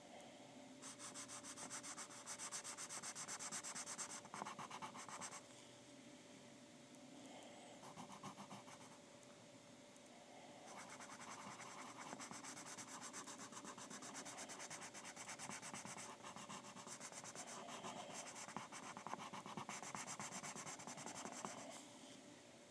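Graphite pencil shading on paper: rapid back-and-forth strokes, a run of about four seconds near the start, then a lull with a few light strokes, then steady shading for about eleven seconds.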